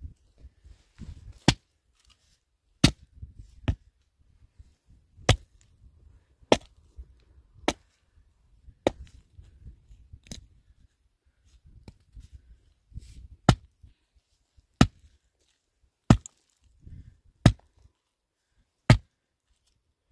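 Firewood being chopped with an axe: about a dozen sharp single blows, roughly one every second and a half, with a couple of longer pauses between them.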